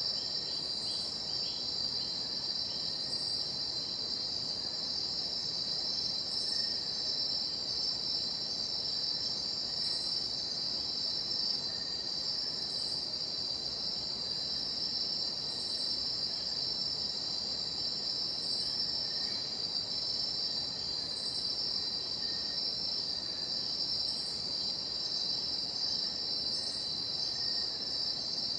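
A chorus of insects such as crickets or cicadas, keeping up one steady high-pitched drone over a low, even hiss.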